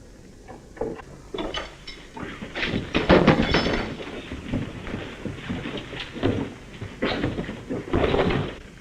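A fistfight: scuffling, thuds of blows and bodies, and knocks against furniture, loudest about three seconds in, ending in the blow that kills a man.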